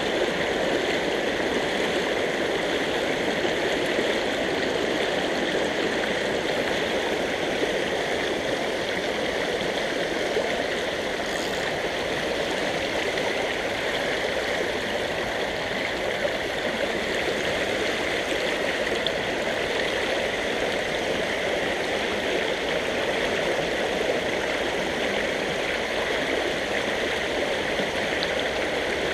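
Shallow creek water rushing steadily over rocks through a riffle.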